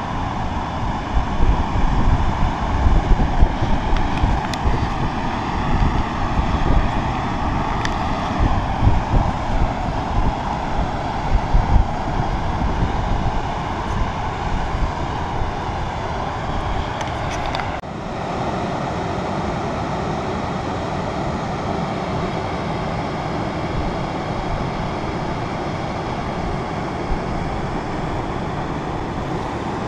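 Small multirotor drone's propellers whirring steadily, with wind buffeting the microphone, gustier in the first half.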